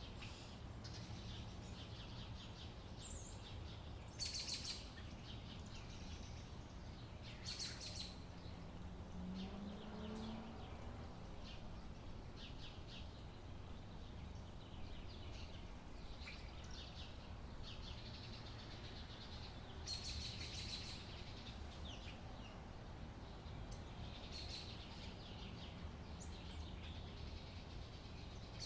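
Outdoor summer ambience: birds chirping on and off in short bursts over a faint, steady low rumble.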